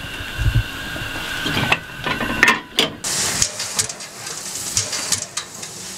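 Steam locomotive standing with steam hissing, with a couple of sharp metal clanks about two and a half seconds in. From about three seconds a stronger, brighter hiss sets in as steam vents from the cylinder drain cocks beside the driving wheels.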